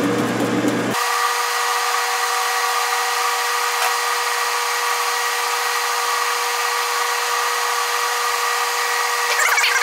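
Enco metal lathe running under power feed, taking a turning cut along a steel shaft: a steady whine of several held tones from the motor and gearing. The low hum drops away suddenly about a second in.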